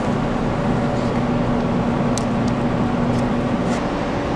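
A steady machine hum under a loud, even rushing noise, with a low hum tone that drops out about three-quarters of the way through and a few faint clicks.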